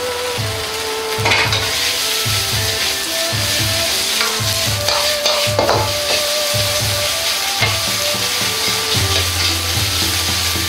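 Shredded vegetables sizzling in a hot wok over a gas flame while a metal ladle stirs and scrapes them, with a few sharper strokes of the ladle against the wok.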